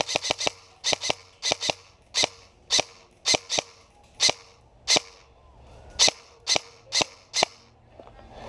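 Airsoft gun firing: a fast string of sharp shots, then single shots about two a second that stop about seven seconds in.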